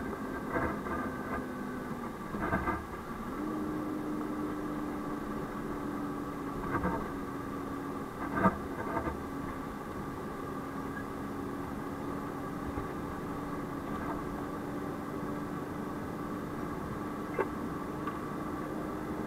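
Isuzu fire truck driving, heard from inside the cab: a steady engine hum and road noise, the engine note stepping up a little about three and a half seconds in. Occasional short knocks and rattles, the loudest a little before the middle.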